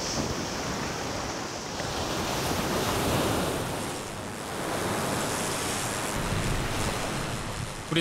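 Sea waves washing in, a steady rushing noise that swells twice.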